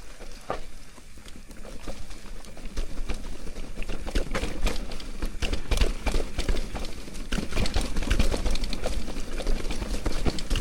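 Mountain bike rattling over a rough rock garden: fast, irregular knocks and clatter from the tyres, chain and frame striking rocks, over a low rumble, getting busier and louder after about three seconds.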